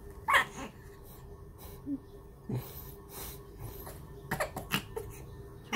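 Baby's breathy giggles and short vocal sounds in several brief bursts while being played with, the loudest about half a second in.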